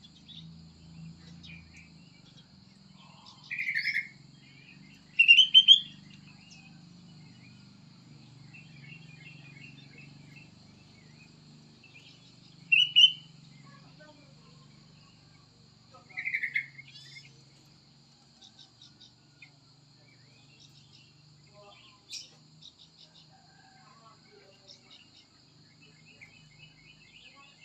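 Prenjak sawah (a rice-field prinia) calling in short, loud bursts of rapid chirps, four times, with fainter chirps in between. A steady high-pitched hum runs underneath.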